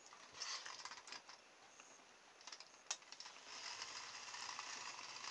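A few faint handling clicks, then about three and a half seconds in the small electric motor of a nasal hair trimmer starts spinning a small black propeller and runs as a steady, faint whir.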